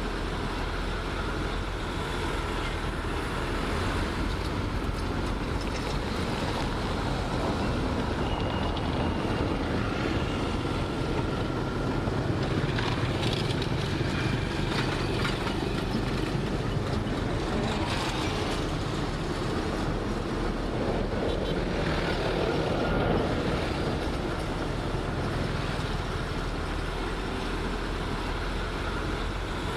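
Heavy diesel earthmoving machinery running steadily under work, with a stretch of clattering about halfway through.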